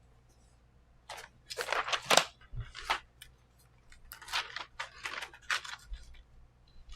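Plastic keycap-set packaging being handled and opened, crinkling and crackling in two bursts, a little after the start and again around the middle.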